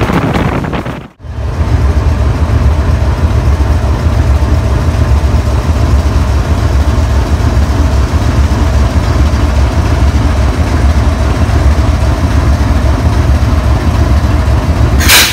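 GEU-40 diesel-electric locomotive's engine running steadily with a deep, heavy rumble. The sound drops out briefly about a second in, and a short, loud burst of hiss comes near the end.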